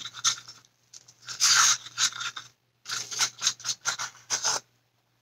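Rapid scraping strokes of a stir stick in a small cup of paint, mixing in glitter, in three bursts of about four strokes a second that stop shortly before the end.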